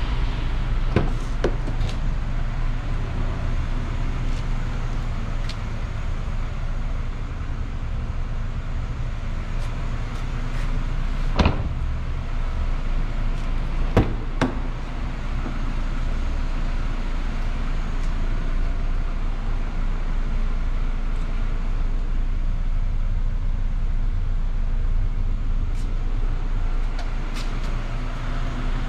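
Steady low hum and rumble of an underground car park, with a few sharp knocks: two about a second in and two more about halfway through.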